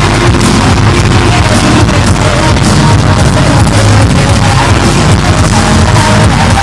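Live band music played very loud over a concert PA system, heard from within the audience.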